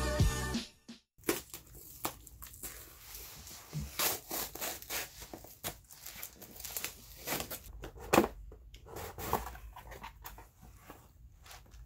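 Intro music cuts off under a second in. After that, packaging is handled and opened: irregular rustling, crinkling and tearing with scattered light knocks.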